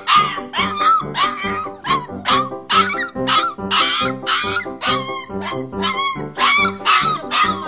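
Siberian husky puppy yipping and whining in a rapid, regular string of short cries, about three a second, over background music.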